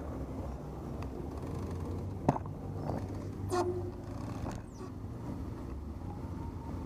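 Steady low rumble of traffic and riding noise during a road bike ride. A sharp click comes a little over two seconds in, and a short burst about a second later.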